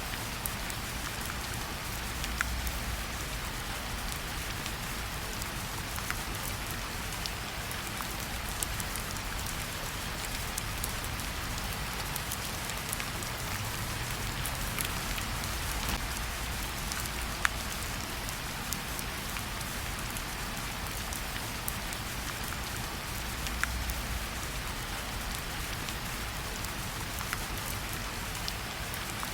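Steady rainfall, with scattered sharper ticks of individual drops hitting a surface.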